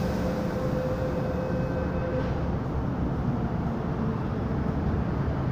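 MTR M-Train electric multiple unit running into the platform, a steady rumble of wheels and traction gear heard through the platform screen doors, with a steady whine that stops about two seconds in.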